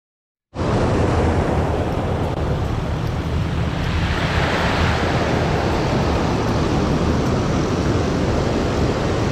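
Surf washing onto the beach, with wind buffeting the microphone. It starts abruptly about half a second in, and a wave breaks about four seconds in.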